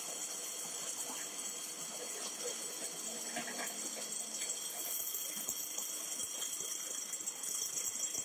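Vibratory finishing bowl churning steel motorcycle sprockets through dry wood-chip media: a steady rustling hiss with faint scattered clinks.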